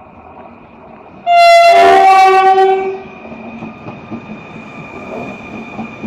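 Renfe train sounding a loud horn blast of about a second and a half, which drops to a lower pitch partway through. Before and after it the train runs along the track with a steady high whine.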